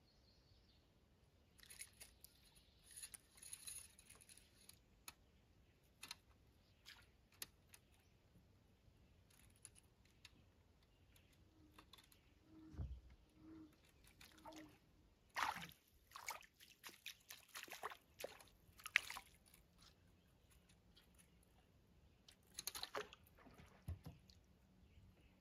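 Near silence broken by scattered faint clicks, knocks and brief rustles, the sharpest clustered in the middle, with light water sloshing.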